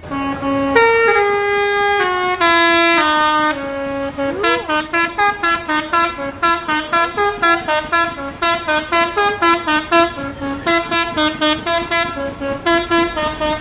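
Bus's basuri multi-tone musical horn playing a tune. It holds several long notes that step up and down in pitch, then about four seconds in it breaks into a quick run of short notes, roughly three a second.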